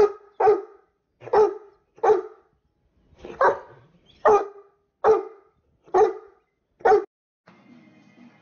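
A large dog barking about nine times in a steady series of single sharp barks, roughly one a second, stopping about seven seconds in.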